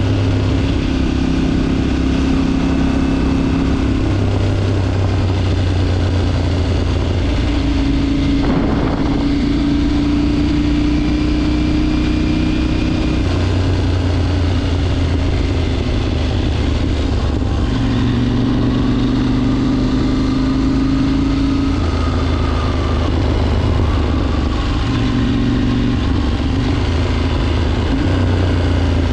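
KTM 790 motorcycle's parallel-twin engine running under way, its note holding steady for a few seconds at a time and shifting up or down several times as the throttle and gears change.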